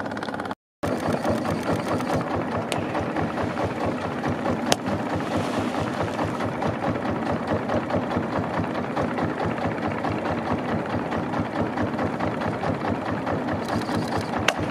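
Boat engine running steadily with a fast, even rattle, broken by a brief dropout about a second in.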